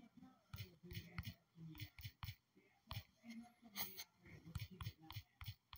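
Quiet, irregular tapping on a phone's touchscreen keyboard as a message is typed, about a dozen short clicks.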